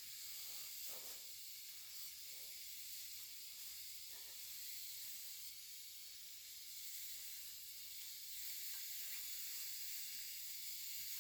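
Faint, steady hiss with a few soft, brief rubbing sounds, spread out: a rag wiping shotgun parts during cleaning.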